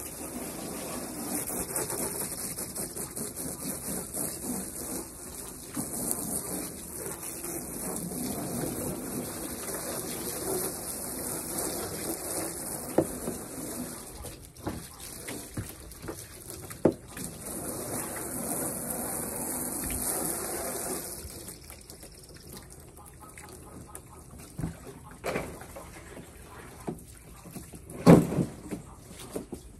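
Garden hose spraying water into a black plastic stock tank to rinse it out: a steady hiss and splash that stops about 21 seconds in. Then scattered knocks and one sharp thump near the end as the emptied plastic tub is handled and set down.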